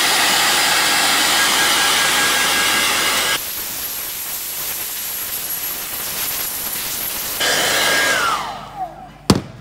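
Handheld hairdryer blowing with a steady whine. About three seconds in the sound abruptly drops to a quieter, thinner rush, then comes back loud about four seconds later. Near the end the dryer is switched off and winds down, its whine falling, followed by a single sharp knock.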